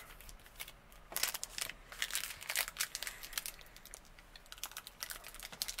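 Foil wrapper of a Panini Select trading card pack crinkling and crackling in the hands as the pack is picked up and opened. The crackles come in irregular clusters, starting about a second in.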